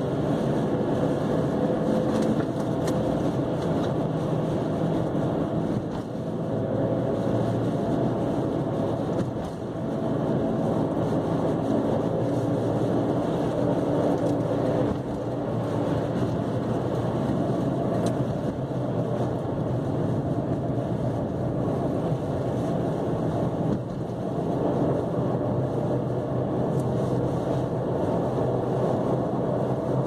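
Steady in-cabin road noise of a Chevrolet Cavalier cruising on a snow-covered highway: its tyres running over the snowy road, with the engine humming underneath.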